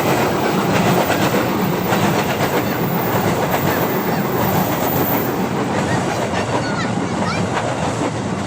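Train passing close by, its wheels clattering steadily over the rail joints, the noise easing slightly toward the end.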